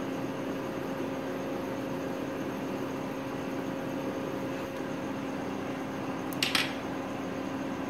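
Steady hum of a running kitchen appliance, with a low whine held at one pitch, and a brief hiss about six and a half seconds in.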